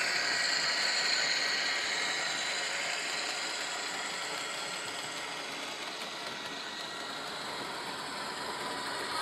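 HO-scale Rapido EMD E8A model locomotive running with its onboard ESU LokSound decoder playing diesel engine sound through a small speaker as it pulls passenger cars past. The sound eases off a little as the train moves away, then grows louder again near the end.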